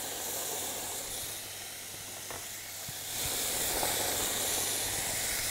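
Small pieces of chicken breast and onions frying in oil in a pan, a steady sizzle that grows a little louder about three seconds in. The onions are at the caramelising stage.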